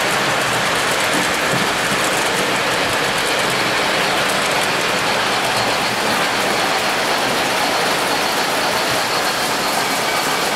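O-gauge tinplate model trains running on the layout track: a steady rumble and clatter of wheels rolling over the rails.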